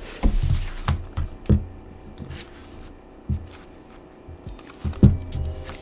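Hands handling a box set's cardboard packaging and paper booklet: a handful of soft knocks and bumps with light rustling, over faint background music.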